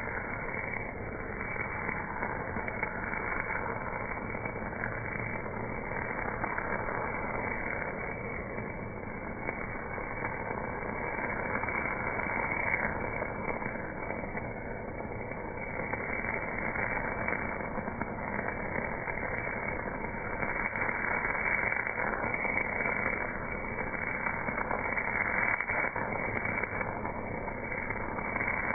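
MAG welding arc running at 280 amps on a casting: a steady, dense crackling hiss. Slowed down with the slow-motion footage, it comes out as a low, muffled rush that swells a little louder near the end.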